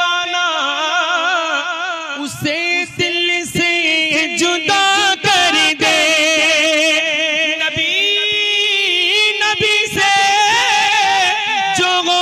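A man singing a devotional Urdu kalam (naat-style hymn) solo into a microphone. His voice is amplified, with long held notes and wavering ornamented runs.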